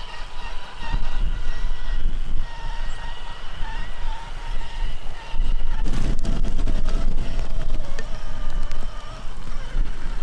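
Sensored brushless electric motor of a Traxxas TRX-4 RC crawler truck whining as it drives through grass and mud, its pitch wavering slightly with the throttle, over rumbling noise that gets louder about six seconds in.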